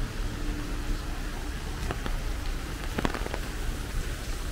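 Heavy rain falling on a wet street and pavement, a steady hiss with a low rumble underneath. A few sharp taps come through about two seconds and three seconds in.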